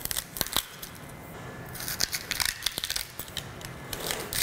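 Chef's knife cutting through a raw fennel bulb on a wooden cutting board, coring out its heart: crisp crunching and snapping of the bulb with clicks of the blade on the board. There are a few crunches at the start and a denser run of them about two seconds in.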